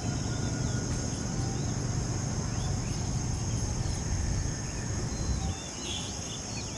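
Steady high-pitched drone of insects over a low rumble, with a few faint short chirps about halfway through and near the end.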